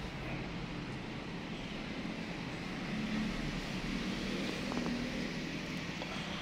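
Steady background noise: an even hiss over a low hum, with a couple of faint ticks about two-thirds of the way through.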